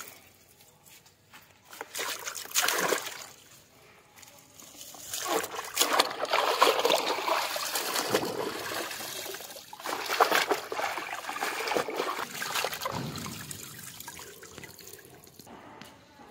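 Water pouring and sloshing. There is a short burst about two seconds in, then a longer spell of pouring and splashing that fades near the end.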